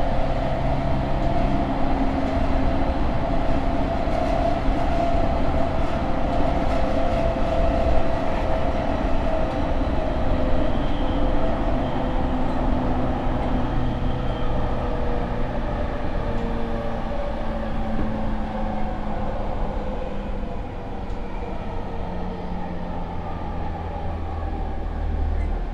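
JR East E231-series 800-subseries motor car with Mitsubishi IGBT VVVF inverter control, heard from inside the car: the inverter and traction motor whine over steady wheel-on-rail rumble. The tones fall slowly in pitch as the train slows.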